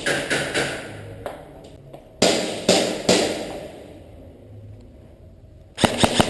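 Airsoft gunfire on a close-quarters course: sharp single clacks with pauses between them, then a quick burst of several shots near the end.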